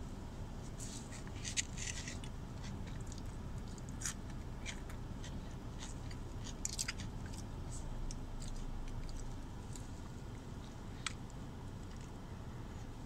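A person chewing a mouthful of Big Mac close to the microphone: scattered wet smacks and soft crunches of bun and shredded lettuce, over a steady low rumble.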